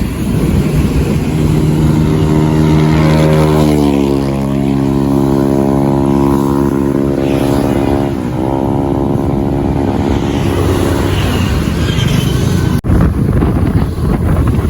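Motorcycle engine running on the move. Its note shifts in pitch about four seconds in and dips briefly just past the middle, over steady road noise.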